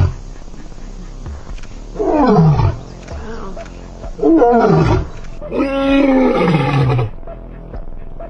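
A big cat roaring: three loud roars about a second apart, each sliding down in pitch, the last one held longest.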